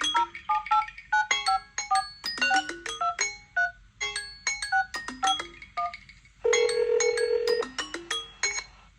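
A phone ringtone or alarm tone: a quick melody of short, bright chiming notes that die away fast, with one longer held note about two-thirds of the way through.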